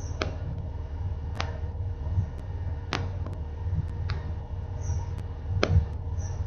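A steady low rumbling noise with a faint steady hum, broken by sharp crackling clicks about once a second.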